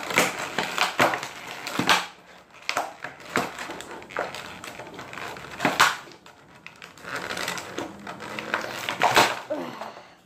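Stiff clear plastic blister packaging of a fingerboard set crackling and cracking as it is pried open by hand, in irregular crinkles with several louder snaps.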